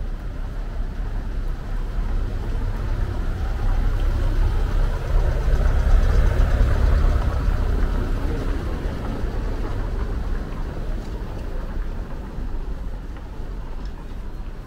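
A small SUV drives slowly past along a narrow cobblestone street. Its engine rumble and tyre noise swell to a peak about six seconds in, then fade as it moves on ahead.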